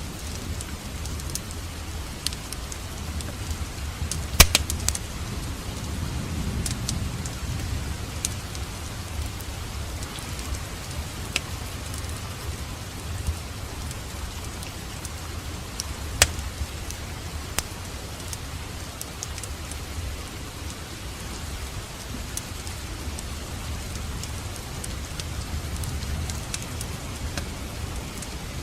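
Wood fire burning in a fireplace: a steady low rumble of flame with scattered sharp crackles and pops. The loudest is a quick cluster of pops about four seconds in.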